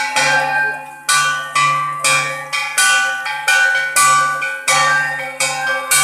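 A metal bell struck over and over at an uneven pace, about ten strokes, each stroke ringing on with several tones and fading until the next.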